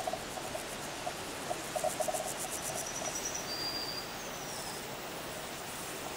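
Open-country wildlife over a steady hiss: a high, fast-pulsing insect trill in the first half, short low stuttering notes in the first two seconds, and a few thin high bird whistles around the middle, one sliding downward.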